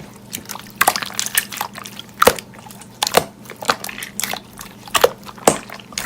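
Slime being squeezed and pressed by hand, making irregular wet clicks, pops and squelches.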